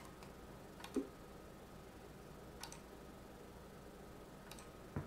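About four sharp computer mouse clicks, the loudest about a second in, over a faint steady hum and hiss.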